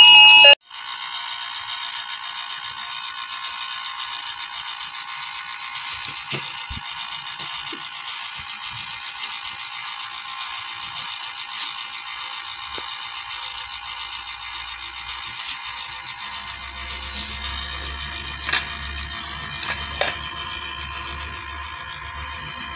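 Small battery motor of a toy washing machine running with a steady whir, with a few sharp plastic clicks scattered through it.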